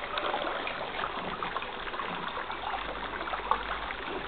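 Water from a garden hose running into a pool, a steady trickle with small splashes.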